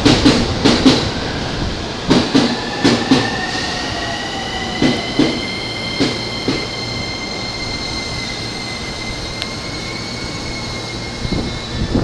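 A 15-car commuter train pulling in alongside the platform, its wheels clicking in pairs over the rail joints. The clicks come further and further apart as it slows, and a high steady squeal from the train runs under them for most of the time.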